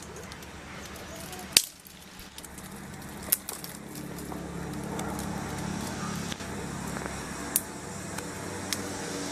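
Knife cutting a bottle gourd into chunks by hand, giving a few sharp clicks, the loudest about a second and a half in. A low steady hum comes in from about four seconds in.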